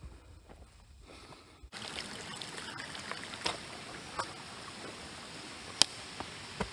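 Steady rush of running water, starting abruptly about two seconds in, with a few faint clicks over it.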